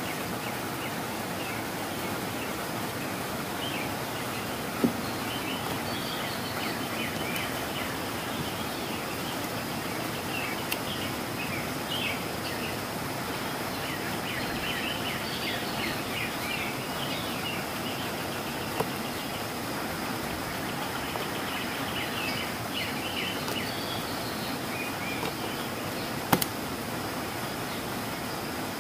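Outdoor nature ambience: a steady hiss with scattered high chirping calls, and four sharp clicks.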